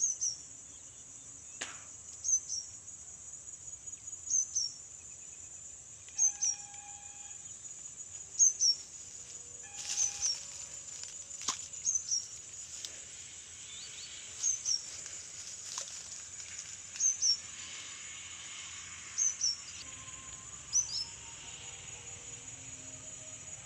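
Insects trilling steadily in a high drone, with a bird repeating a short high double call about every two seconds.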